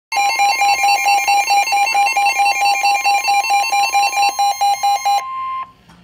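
Midland weather alert radio sounding a severe thunderstorm warning alarm: a rapidly pulsing beep, about five a second, over a long steady tone. The beeping stops about five seconds in, and the steady tone cuts off a moment later.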